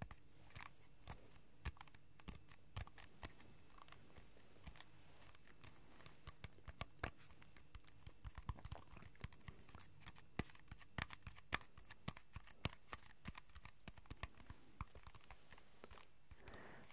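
Fingertips tapping on the skin of a whole apple, close to the microphones: many quiet, sharp taps at an uneven pace, coming faster and thicker in the second half.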